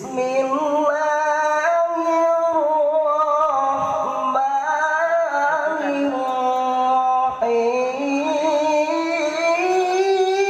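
A solo voice reciting the Quran in the melodic tilawah style, drawing out long, slowly gliding melismatic notes without pause.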